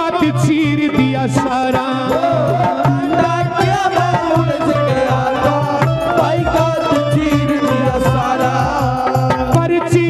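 Live Haryanvi devotional bhajan: a man singing over hand-drum rhythm and melodic accompaniment.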